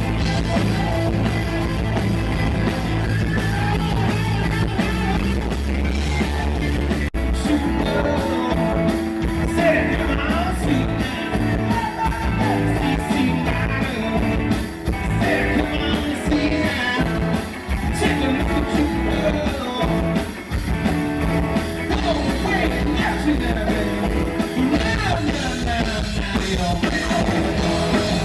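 Rock music with a singing voice over a steady beat and bass.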